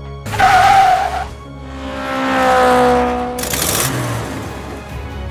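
Car sound effects over background music: a tyre screech about half a second in, then an engine sweeping past with its pitch falling, and a short skid hiss near four seconds.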